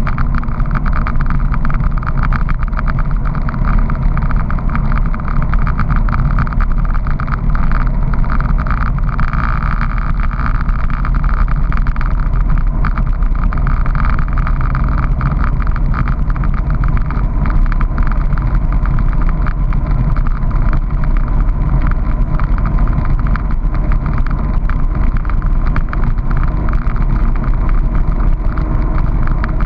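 Honda PC800 motorcycle's V-twin engine running steadily under way, with constant wind and road noise.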